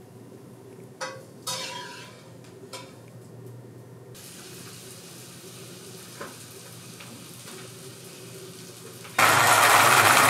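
Quiet background ambience with a few faint short sounds early on. Near the end, an electric pencil sharpener starts suddenly and grinds loudly and evenly as a pencil is pushed into it.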